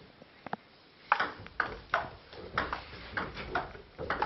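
Table tennis ball knocked back and forth, clicking sharply off bats and table about twice a second from about a second in.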